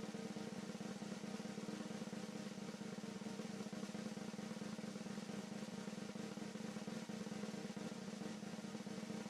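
A steady, continuous snare drum roll.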